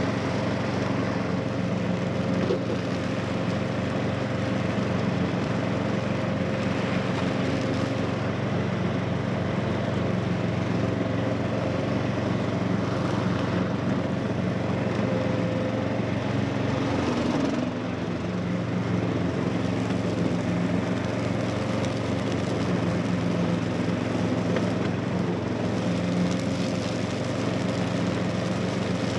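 Stiga Tornado 398 ride-on mower's ST 450 petrol engine running steadily as the tractor drives over a leaf-covered track, its cutting deck sweeping up fallen leaves. The loudness dips briefly about two-thirds of the way through.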